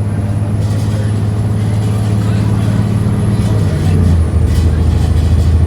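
An engine running steadily, its pitch shifting lower about four seconds in.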